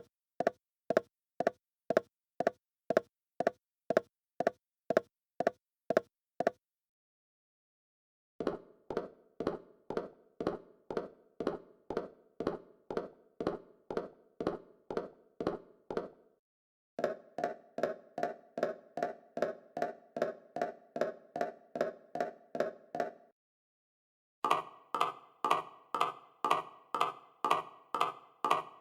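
Footsteps of hard-soled shoes (heels and leather shoes) clicking on a hard floor at an even pace of about two steps a second. Several separate takes follow one another with short silences between them; the later takes have a fuller, more ringing click.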